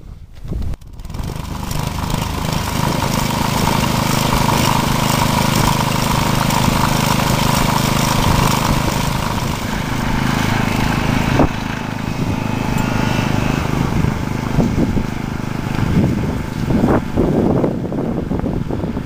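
Small engine running steadily, its sound changing and turning more uneven about halfway through.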